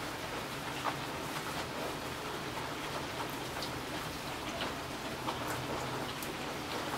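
Steady rain falling on a hard wet surface: an even hiss with individual drops ticking close by every fraction of a second.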